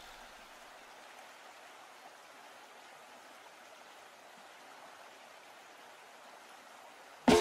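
Faint, steady rush of flowing river water. It is cut off just before the end by music starting suddenly and loudly.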